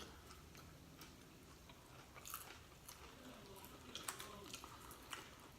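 Faint close-miked chewing and lip smacking of food, with scattered soft mouth clicks.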